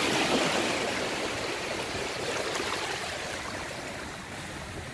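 Small waves washing in over shallow water on a sandy shore, a steady rushing wash that is loudest at the start and slowly eases off.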